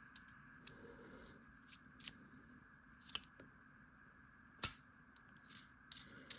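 Scattered sharp little clicks and taps of a metal carabiner multitool being handled, its screwdriver bits being worked in their rubber holder. The loudest click comes a little past halfway, over a faint steady hum.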